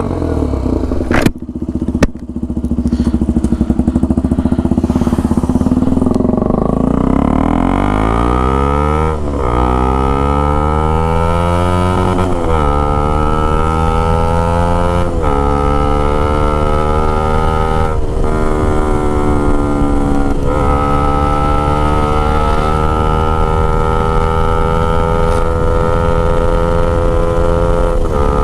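KTM Duke 200's single-cylinder engine through a loud aftermarket Akrapovič-style full exhaust, pulling away and accelerating through several upshifts. Each gear's note climbs in pitch and drops sharply at the shift, then the note holds fairly steady near the end. Two sharp knocks sound in the first couple of seconds.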